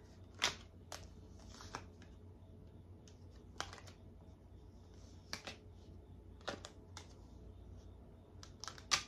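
Tarot cards being handled over a glass-topped table: a dozen or so scattered sharp clicks and taps, the loudest near the end.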